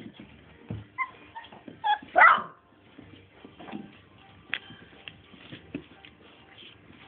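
Four-week-old Scottish Deerhound puppies playing, giving short high-pitched cries, the loudest a yelp about two seconds in, among scattered light clicks.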